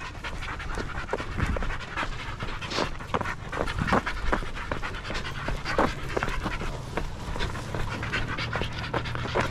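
Deer-hunting hound panting close by in quick, irregular breaths. A low steady hum joins about halfway through.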